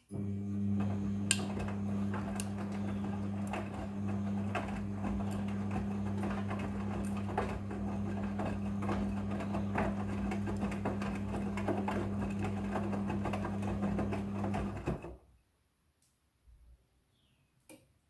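Midea front-loading washing machine running, its drum turning wet clothes: a steady motor hum with many light clicks and knocks from the load. The sound cuts off abruptly about fifteen seconds in.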